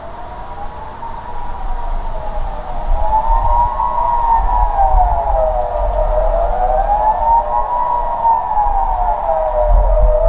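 Kockum Sonic Delta electronic civil-defence sirens sounding the Swiss general alarm: a wailing tone that rises and falls about every four seconds. Several sirens are heard out of step with one another.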